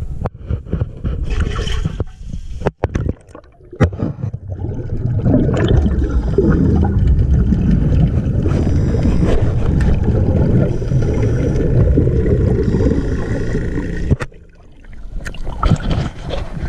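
Underwater gurgling and bubbling of water against the camera, heard through its housing, with a few sharp knocks in the first four seconds. About 14 s in it drops away suddenly, then lighter sloshing follows as the camera is at the waterline.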